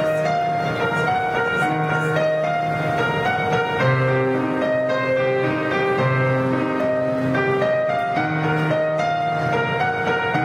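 Live band music led by an electronic keyboard, playing a slow melody of held notes over longer, deeper notes.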